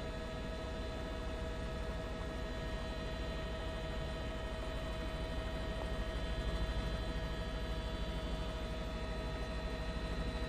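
Helicopter cabin noise: a low, rapid rotor beat with a steady whine of several tones above it.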